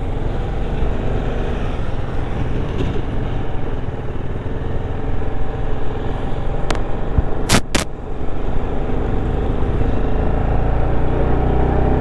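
Motorcycle engine running as the bike pulls away and rides along a wet road, steady throughout. Three sharp clicks between about six and a half and eight seconds in.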